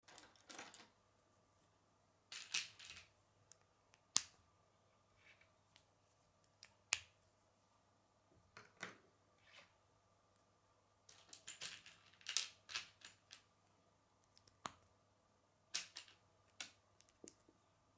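Plastic K'nex pieces being snapped together and handled: scattered sharp clicks and light rattles as rods are pushed into connectors, with several in quick succession about eleven to thirteen seconds in.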